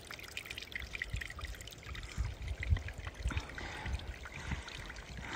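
Small mountain brook trickling over rock under melting snow, with irregular low muffled thumps on the microphone.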